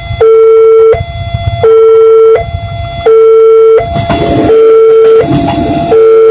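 Railway level-crossing warning alarm sounding its alternating two-tone signal, a low note and a higher note each held about three-quarters of a second, signalling an approaching train. From about four seconds in, a KRL electric commuter train adds a rumble as it runs into the crossing.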